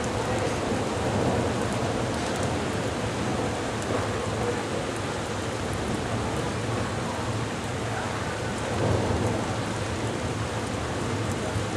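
Heavy thunderstorm rain pouring down steadily, with scattered drops ticking on nearby surfaces and thunder rumbling low underneath.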